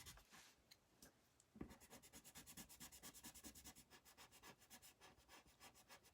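Coloured pencil scribbling on paper, faint, in rapid back-and-forth shading strokes as a drawing is coloured in, with a brief pause about a second in.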